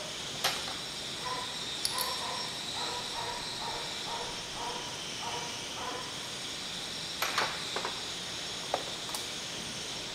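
Glassware clinking and tapping as test tubes and a dropper bottle are handled: single clinks about half a second and two seconds in, and a quick cluster about seven seconds in, over a steady hiss. A short chirping call repeats about twice a second through the first six seconds.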